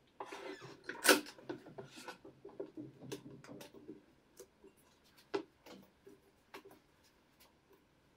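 Cutting board and leather being handled at a hand-lever cutting press: a scraping slide with a sharp knock about a second in, then scattered light clicks and taps as cut pieces are picked out of the die, with another knock past the five-second mark.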